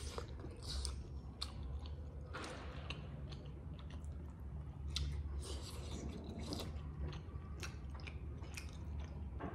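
People chewing and biting into steamed momo dumplings, with wet mouth sounds and smacks at irregular intervals over a low steady hum.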